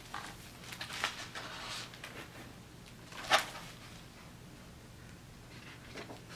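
Pages of a large picture book being turned: paper rustling in the first two seconds, a short sharp flap of a page about three seconds in, and more rustling near the end.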